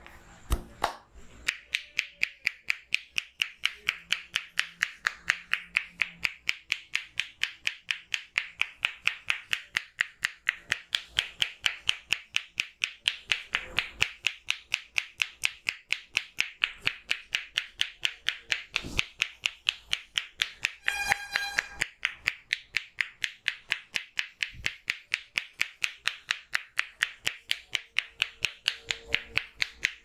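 Rapid, even hand tapping in a head massage: the barber's palms, pressed together, strike the forehead and scalp, giving a hollow clapping sound about three to four times a second.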